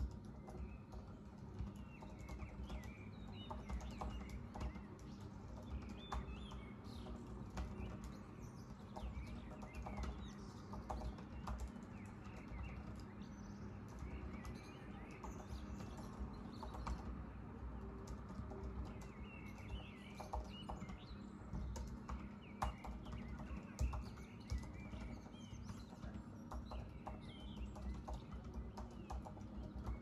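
Typing on a Mac laptop keyboard: irregular soft keystroke clicks with occasional louder taps, while birds chirp in the background.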